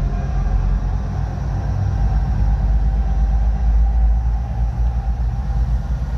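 Amplified party music from a sound system carried from a distance, heard almost only as its bass: a loud, continuous low thump of held bass notes, with the rest of the music faint and muddy above it.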